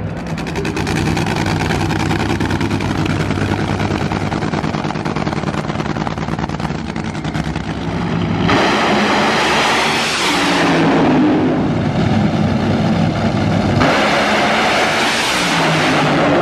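Supercharged nitromethane V8 engines of nitro drag racing cars at full throttle: a dense crackling rumble, then two sudden loud blasts about eight and a half and fourteen seconds in, each fading over a couple of seconds as the cars pull away down the track.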